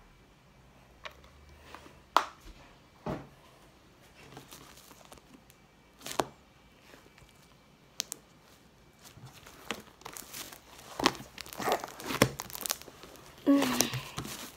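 Homemade glitter slime being pressed and kneaded by hand on a tabletop: a few sharp pops and clicks spaced a second or more apart, then a busier run of tearing, crackling noises in the last few seconds as the hands work it harder.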